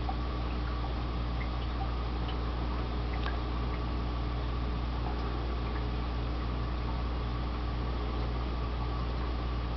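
Steady low hum of aquarium pump equipment under an even wash of bubbling, trickling water, with a few faint ticks.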